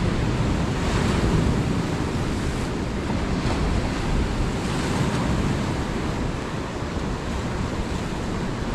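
Ocean surf washing in over shoreline rocks, a continuous wash that swells about a second in and again about five seconds in, with wind buffeting the microphone.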